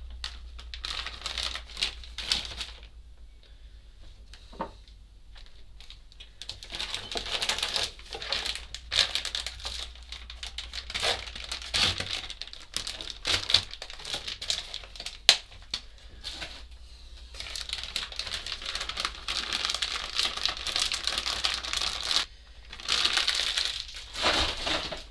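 Plastic cling film crinkling and rustling in irregular bursts with sharp crackles, as a large bread round lying on it is handled and grated cheese is spread over it by hand.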